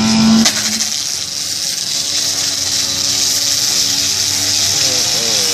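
Brush cutter running, its blade scraping and grinding along concrete paving in a steady high hiss.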